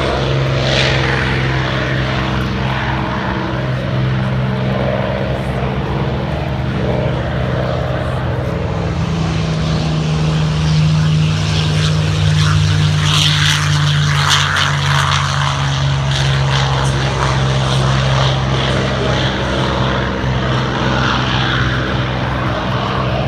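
Piston-engined propeller warbird aircraft droning steadily, the engine note shifting in pitch about midway through.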